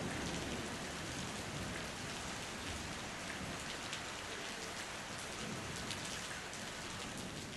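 Heavy rain falling on pavement and the street: a steady hiss with scattered close drop ticks. A low rumble of thunder dies away in the first second.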